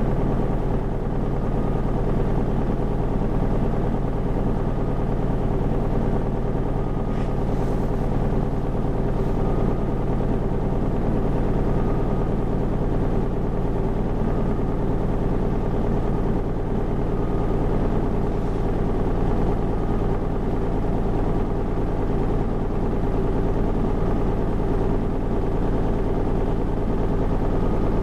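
Isuzu 2KG-LR290J4 diesel bus heard from inside the passenger cabin, its engine running at a steady, unchanging speed with a constant low drone.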